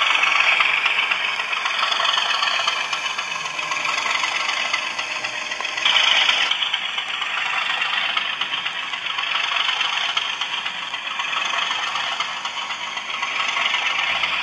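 Model Class 37 diesel locomotive's DCC sound decoder playing an English Electric diesel engine sound through its small on-board speaker, thin with little bass, over the rattle of the model running on the track. The sound swells briefly about six seconds in.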